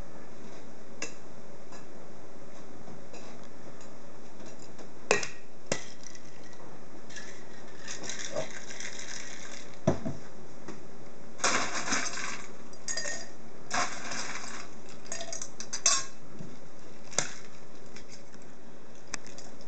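Metal cocktail shaker tins and glasses clinking and knocking during bar flair, with scattered sharp clinks and several rattling stretches of a second or so.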